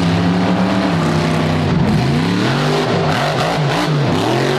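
A vehicle engine, the sound of a monster truck, runs at a steady note, then revs up and down repeatedly from about two seconds in.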